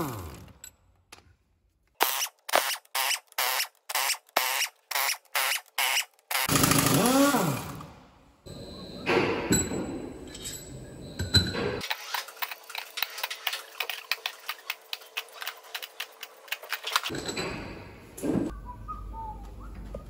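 Pneumatic impact wrench undoing cylinder head bolts on a Scania 13-litre diesel engine. It fires in a string of short bursts about half a second apart, then runs longer with its pitch sweeping. Later comes a stretch of rapid clicking and tool clatter.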